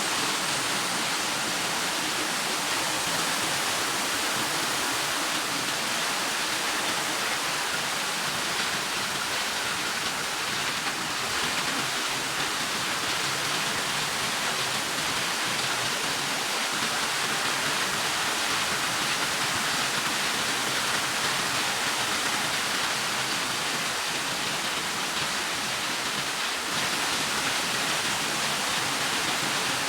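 Steady rush and splash of water from a bucket-wheel sand washing machine at work.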